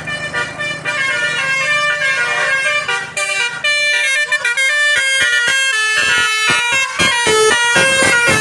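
Tour bus telolet horn playing a quick, tune-like run of notes that jump from pitch to pitch every fraction of a second. A low steady hum runs underneath until about three and a half seconds in.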